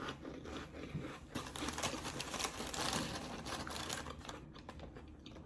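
Quick, crisp crackling and clicking of saltine crackers being handled and crunched close to the microphone.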